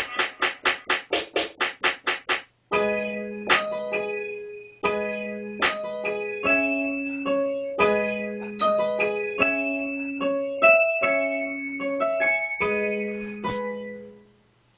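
Electric piano chords, a slow progression of sustained notes with sharp hits at the chord changes, dying away near the end. They are preceded by about two seconds of one short sound repeated quickly, about five or six times a second.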